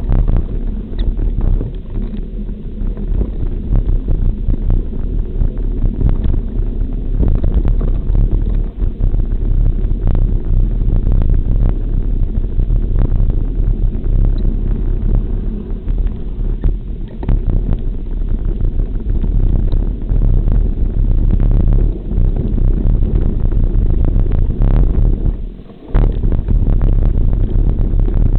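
Mountain bike ridden over a rough, narrow dirt trail: a loud, steady low rumble of wind buffeting the microphone and the bike jolting, with many small knocks and rattles. The noise drops out briefly near the end.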